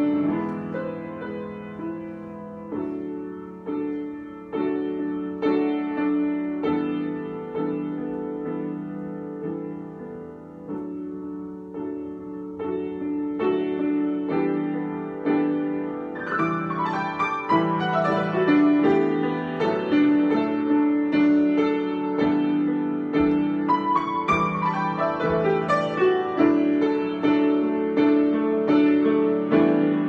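Solo grand piano improvisation: sustained chords and melody, soft at first, then louder and busier about halfway through, with quick runs up and down the keyboard.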